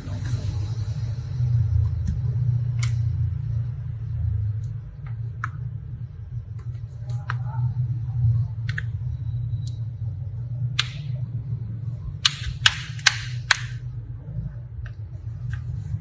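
Scattered light clicks and taps, with a quick run of four sharper clicks about twelve seconds in, over a steady low hum.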